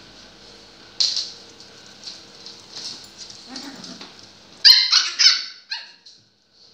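Puppies yipping and whining, with a quick run of loud, high-pitched yelps a little past the middle.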